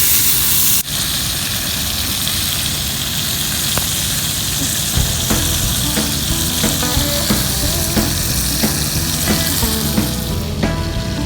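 Bacon sizzling and frying in a cast iron skillet, a steady crackling hiss. Background music with a regular beat comes in about halfway through, and the sizzle softens near the end.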